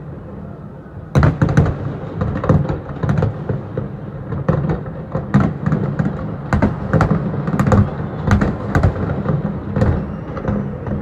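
Fireworks display: from about a second in, a rapid, irregular run of sharp bangs and pops, several a second, over a steady low rumble.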